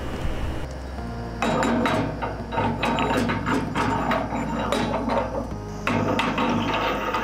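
Stainless-steel parts of a speed mill clinking and scraping as a cap and sleeve are fitted onto its rotor shaft by hand, in quick irregular taps and rubs. Background music with held chords plays underneath.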